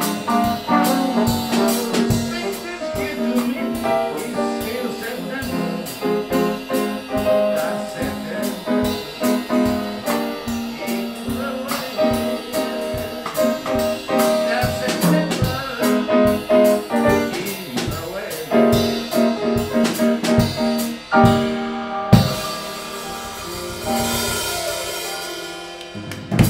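Live small-group jazz from piano, trombone and drum kit playing a medium-tempo tune. Near the end a cymbal wash builds to a final accented hit as the tune closes.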